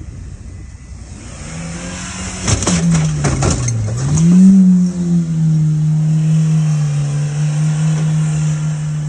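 Car engine revving hard as the car crosses a torn-up railroad crossing, with a quick burst of knocks and rattles about two and a half seconds in as it bounces over the track. The engine note falls, then climbs to its loudest near the middle and holds steady as the car drives on.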